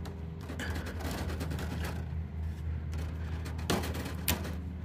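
A steady low mechanical hum, with two sharp knocks near the end about half a second apart.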